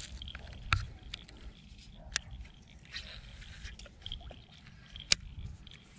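Scattered clicks and knocks of fishing gear being handled in a plastic kayak, three sharper clicks standing out, over a low steady rumble.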